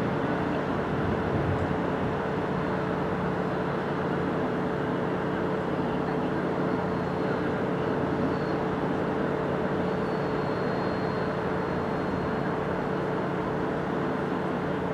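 Diesel multiple-unit train running steadily: a constant engine hum with a steady mid-pitched tone over a broad rumble. A faint high whine joins about ten seconds in.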